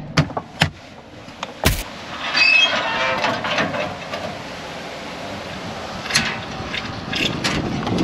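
Clicks and a sharp clunk from a center-pivot irrigation control panel as it is switched on. A steady rushing noise follows from about two seconds in, with a few more clicks.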